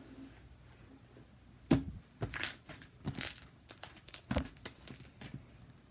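Glue-based homemade slime being stretched and squeezed by hand, giving irregular sticky crackles and snaps that start a little under two seconds in.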